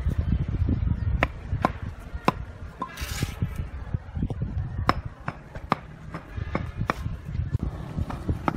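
Hammer tapping hexagonal concrete pavers down into their sand bed: a string of sharp, irregularly spaced knocks of a hammer on concrete, with a brief scrape about three seconds in, over a low background rumble.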